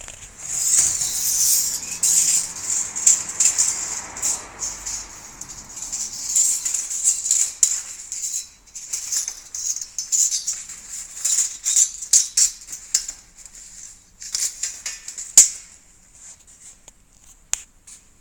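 Sheet-metal drip edge (karakusa) being cut and worked by hand: a run of irregular, short, high scraping strokes. The strokes thin out toward the end, where one sharp click is the loudest sound.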